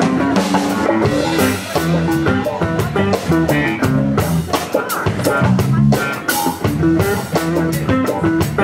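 Live band playing a groove: guitar lead over electric keyboard, bass and drum kit with cymbals.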